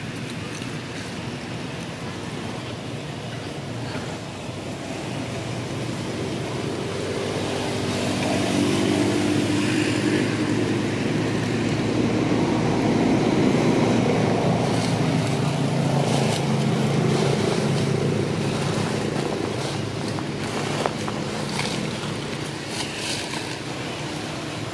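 A motor vehicle's engine getting louder, then fading away, as it passes by.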